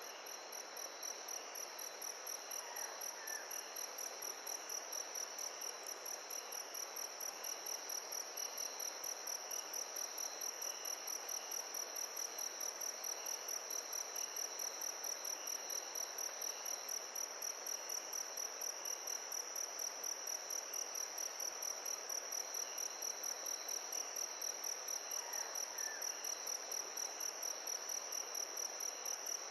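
Crickets chirping in a steady, rapid, high-pitched pulsing trill over a constant background hiss.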